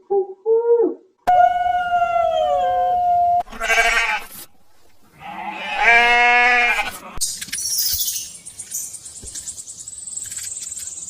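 A string of different animal calls cut one after another: short repeated calls stop about a second in, then a long call falling in pitch, a short harsh noisy burst, and a drawn-out pitched call about six seconds in. A high hiss or buzz runs through the last few seconds.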